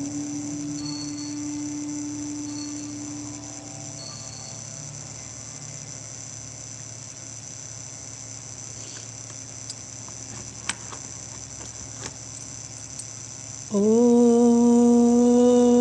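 A held sung note trails on and stops about four seconds in, leaving a faint steady high whine and a few soft clicks. Near the end a loud chanted 'Om' begins, sliding up briefly and then held steady on one deep note.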